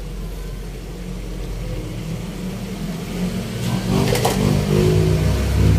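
Pan of squid adobo simmering on the stove with a low steady rumble. About four seconds in, the glass lid is lifted off with a brief noise and the sound grows louder.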